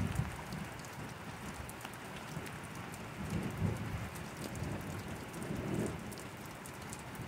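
Steady rain falling on wet ground, with close droplets ticking and distant thunder rumbling low twice near the middle.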